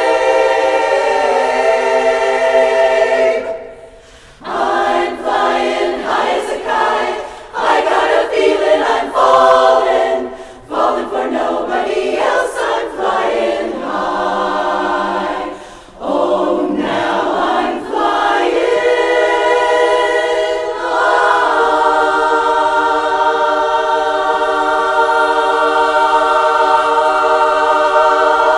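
Women's barbershop chorus singing a cappella in close harmony. It holds a chord, breaks off briefly about four seconds in, sings several shorter phrases, then sustains a long final chord that cuts off together near the end.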